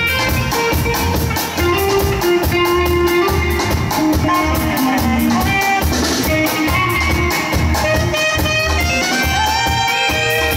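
Live band music: saxophone lead over electric guitar and drum kit, with a steady beat.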